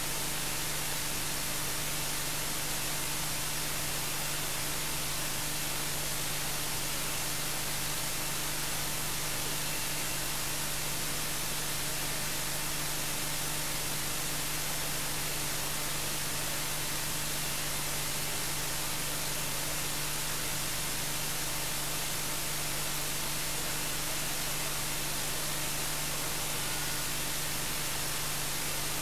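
Steady hiss of recording static with a faint electrical hum underneath, unchanging throughout; no other sound stands out.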